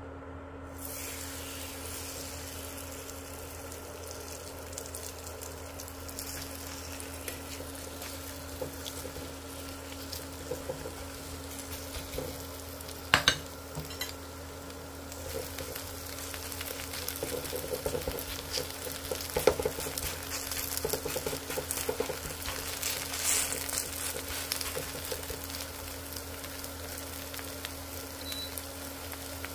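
Oil sizzling in a frying pan, with a single sharp clink about 13 seconds in. After that, Korean chive pancake batter fries with a louder crackling sizzle while a spoon spreads it in the pan.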